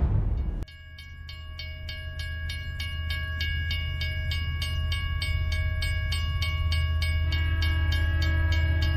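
Multiple-unit passenger train approaching along the track, an ICF-built set: a steady low rumble with held tones and a fast regular pulsing, growing steadily louder as it nears. Under a second in, the louder sound before it cuts off sharply.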